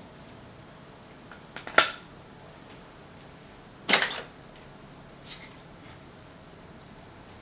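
Plastic clicks and clacks from handling a Sony CFS-W600 boombox's cassette deck and casing: a couple of clicks about two seconds in, a louder clatter about four seconds in, and a few fainter clicks after.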